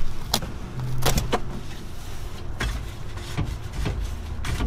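Irregular clicks and knocks, about half a dozen, from a truck seat's frame and foam cushion being worked at with gloved hands and a hand tool.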